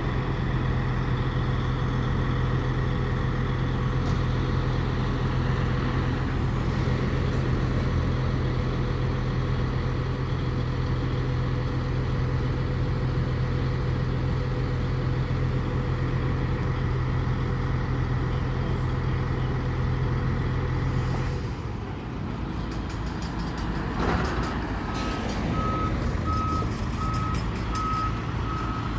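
Heavy recovery truck's diesel engine running steadily as it tows a double-decker bus, with the engine note changing about three-quarters of the way through. Near the end, a reversing alarm starts beeping at an even pace.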